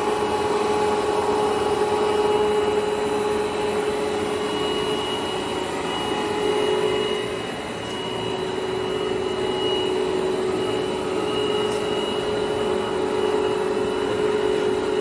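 Jinling 25180G gap bed engine lathe running under power, a steady machine hum with a steady whine from its drive, dipping briefly in loudness about halfway through.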